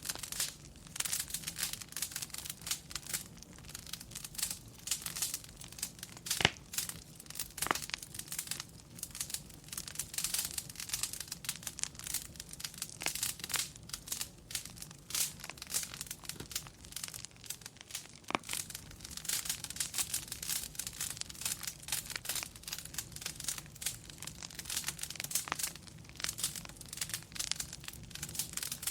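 Wood fire crackling steadily: a dense run of small snaps and ticks with a few sharper, louder pops.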